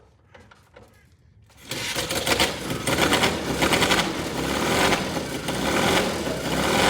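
Classic motorcycle engine starting up about a second and a half in, then running loud and fast with a rapid beat, on its freshly set ignition timing and new spark plugs. A few faint knocks come before it fires.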